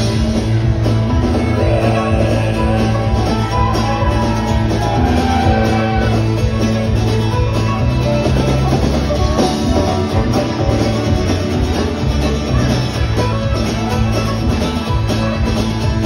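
Live country-rock band playing: fiddle over strummed acoustic guitar, bass and drums.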